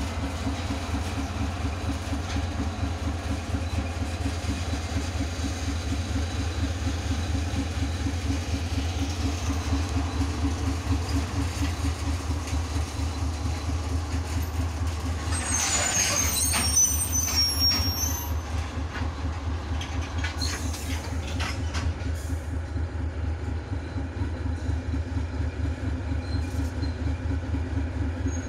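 TGM4B diesel-hydraulic shunting locomotive running with a steady low engine drone as it hauls a slow string of grain hopper wagons. About halfway through, a high metallic squeal comes briefly from the running gear, followed by a few knocks.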